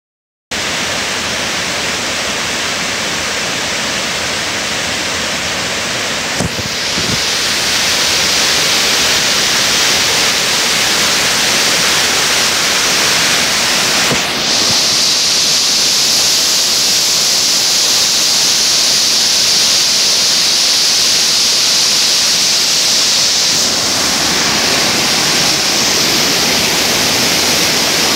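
A small woodland waterfall cascading over boulders: a steady, loud rush of falling water, its tone shifting a few times.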